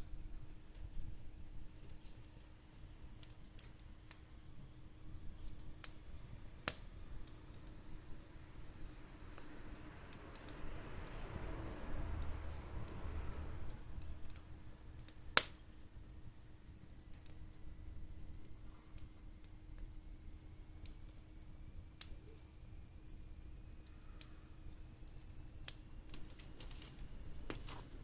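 Firewood burning in a small fire pit, crackling with scattered snaps and pops. The loudest snap comes about halfway through, just after a soft rush of noise.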